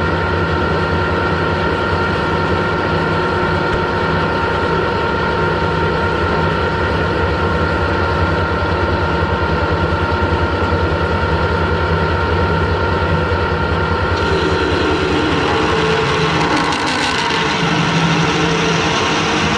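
Metal lathe running steadily, its motor and gear train humming, while a large twist drill in the tailstock cuts into the centre hole of a spinning steel locomotive wheel. About fourteen seconds in, a harsher, higher cutting noise joins the hum as the drill bites.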